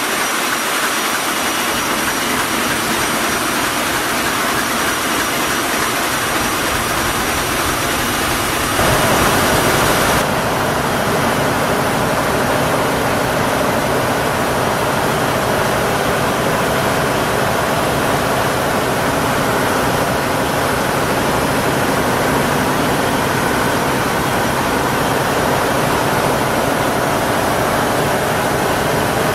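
Loud, steady engine-room noise of a ship's Akers-B&W marine diesel main engine running. The engine is the original from 1964, with nearly 300,000 running hours. The noise changes abruptly about nine seconds in.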